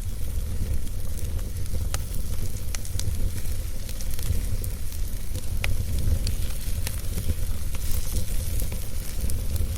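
Wood fire burning in a fireplace: a steady low rumble and hiss with scattered sharp crackles and pops.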